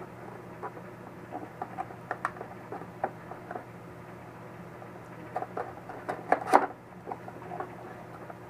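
Hands handling a small cardboard box and its paper insert: scattered rustles, scrapes and light taps, with a louder run of scraping about six seconds in, over a faint low steady hum.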